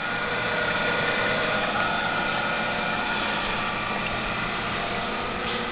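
RONG RF35 radial drill press coming on and running steadily: its motor and spindle make an even mechanical whir with a few faint steady tones.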